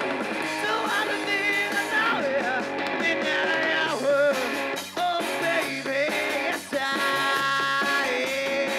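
Rock band playing live: electric guitar, bass guitar and drum kit, with the singer's voice over them.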